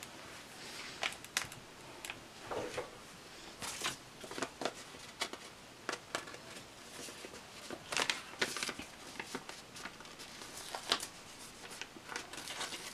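Sticker sheets and paper being handled: scattered soft rustles, crinkles and light clicks.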